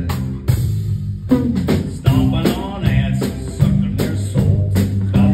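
Live song with a ukulele strummed in a steady rhythm and a man singing into a microphone, with a short lull in the strumming and voice about half a second to one second in.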